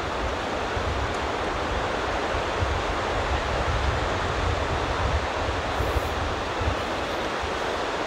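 Steady wash of surf and seaside wind, with gusts rumbling on the microphone.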